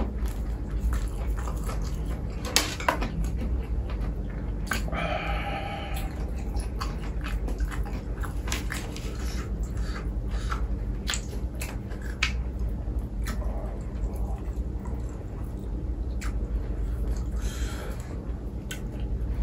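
Close-miked eating: chewing and biting food, with many short crisp clicks and smacks scattered through, over a steady low hum.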